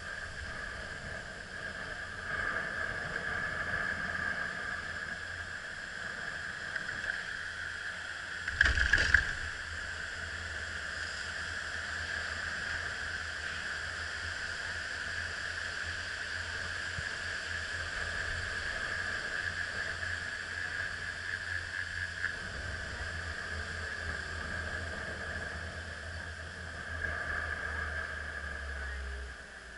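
Riding a chairlift: a steady mechanical whine with low wind rumble on the microphone, and one brief loud knock about nine seconds in.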